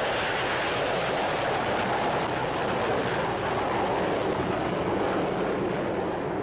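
Jet noise of a low-flying F-16 fighter: a steady rushing sound with no break, its highest hiss thinning out near the end.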